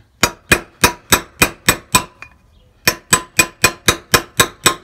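A hammer strikes an aluminium bearing driver, seating the steel outer wheel-bearing race into a 1971 VW Beetle front brake drum hub. Quick, ringing metallic taps come at about three a second in two runs, with a brief pause about two seconds in.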